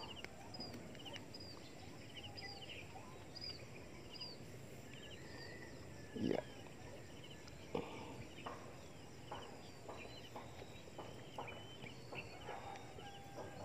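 Faint bird chirps repeating about twice a second, with a few soft clicks and knocks, one louder, about six seconds in.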